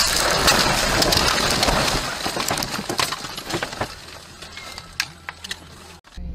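A car crashing off the road into bushes and trees: a loud impact, then about two seconds of branches scraping and smashing against the body and windshield, trailing off into scattered cracks and ticks of snapping twigs and glass.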